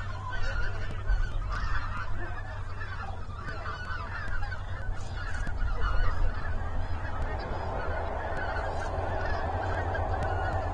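A large flock of common cranes calling together: a dense, continuous chorus of overlapping trumpeting calls, over a steady low rumble.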